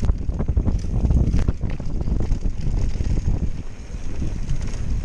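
Wind buffeting an action camera's microphone over the rumble and rattle of a Canyon Spectral AL 7.0 EX mountain bike riding fast down a dirt trail, with scattered sharp knocks and clicks as it goes over bumps.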